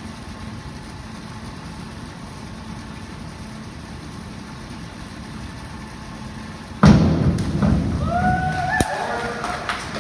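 Steady hum of an indoor pool hall, then, about seven seconds in, a diver hitting the water off a springboard: a sudden loud splash and water churning. A spectator's cheer rises and holds just after, with a few scattered claps near the end.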